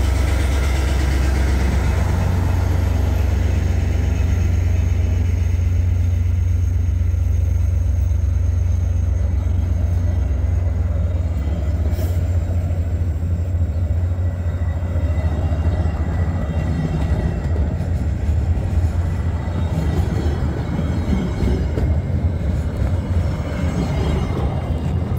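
Mixed freight train rolling past on the rails: a loud, steady low rumble of wheels and cars, with a single sharp click about halfway through.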